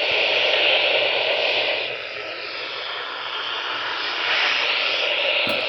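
Steady hiss of radio static from a NOAA Weather Radio receiver, a rushing noise that dips a little in the middle and swells back up.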